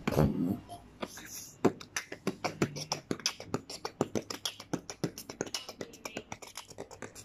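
A boy beatboxing: a rapid run of sharp mouth clicks and percussive pops, about five or six a second, starting about a second in.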